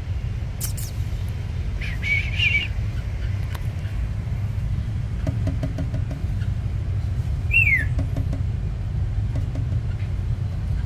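Steady low rumble of road traffic. A bird chirps briefly about two seconds in and gives a single falling whistled note near eight seconds.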